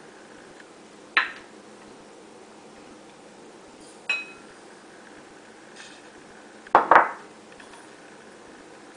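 Kitchen utensils knocking against a mixing bowl: three sharp clinks a few seconds apart, the second ringing briefly and the last a quick double knock, the loudest of them.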